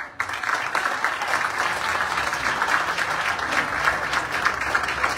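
Audience applauding: many people clapping, breaking out at the start and going on steadily.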